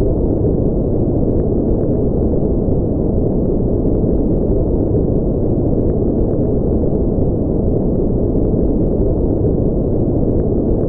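Steady, unchanging generated noise for sleep, deep and muffled rather than hissy: its energy sits low and fades out by about 2 kHz, like brown noise.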